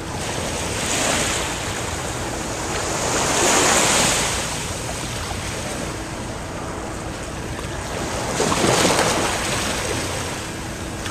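Small waves breaking on a sandy beach, the surf swelling three times, with wind rumbling on the microphone.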